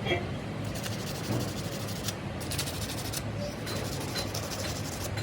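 Steady mechanical hum with a hiss and a few light clicks, as of a workshop machine running.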